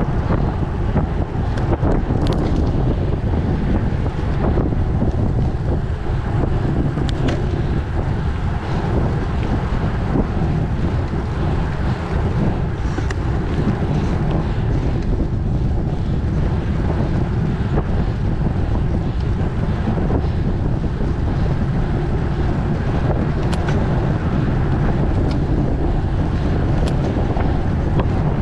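Steady wind buffeting a bike-mounted camera's microphone while a road bike is ridden at about 15 to 25 mph, with a few faint clicks.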